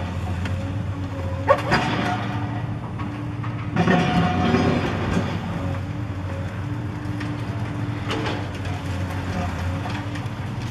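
Caterpillar 5080 excavator running under load while its hydraulic demolition crusher jaws bite into a concrete wall: a steady engine drone with crunching and clattering of breaking concrete and falling debris. The crunching comes briefly about one and a half seconds in, louder about four seconds in, and again near eight seconds.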